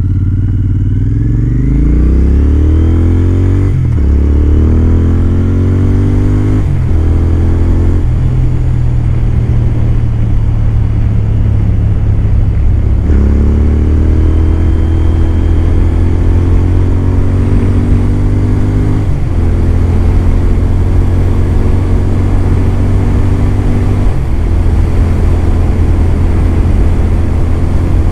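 Royal Enfield Continental GT 650's parallel-twin engine accelerating hard through the gears. The pitch climbs and drops at quick upshifts several times in the first eight seconds, then runs steadier with a few more shifts, under a growing rush of wind and road noise as speed builds.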